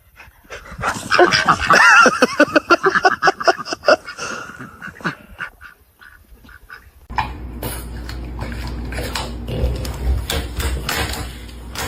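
Animal calls: a quick run of short, wavering cries for about three seconds. After a short pause, a low steady hum with scattered knocks takes over for the rest.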